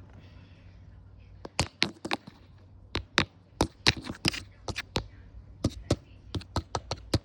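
About twenty sharp, irregular taps and clicks, starting about one and a half seconds in, from hands handling small hard items such as the lip mask jar and its packaging.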